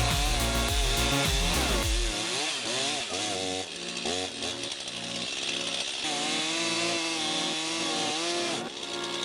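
Chainsaw engine running and revving, its pitch rising and falling again and again as it works through wood. A heavy low rumble under it stops about two seconds in.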